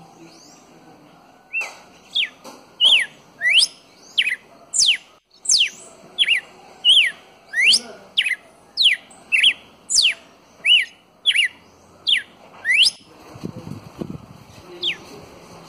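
Red-cowled cardinal singing: a long run of loud, clear whistled notes, each sliding sharply up or down, about two a second. A brief low rustling noise comes near the end, followed by one more note.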